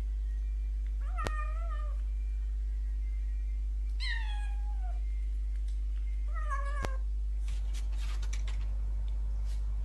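A cat meowing three times, each call about a second long, the later two falling in pitch, over a steady low hum. A patter of light clicks follows near the end.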